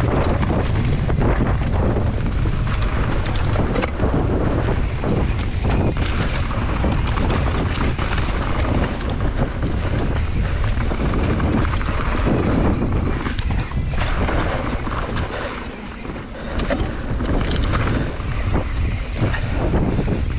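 Wind buffeting the microphone during a mountain bike ride, over the noise of knobby tyres on a dirt trail and scattered clicks and rattles from the bike. The rush eases briefly about three-quarters of the way through.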